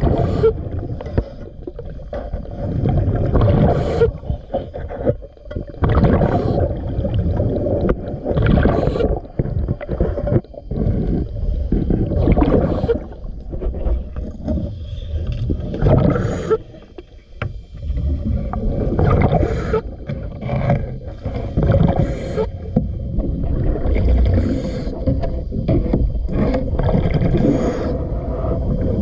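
Scuba diver breathing underwater through a regulator: a hiss on each inhale and a bubbling rumble of exhaled bubbles, repeating every two to three seconds.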